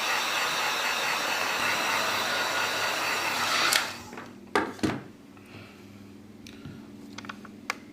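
Heat gun blowing hot air to soften the phone screen's adhesive, cut off sharply a little under four seconds in. A couple of sharp clicks and a few faint taps follow.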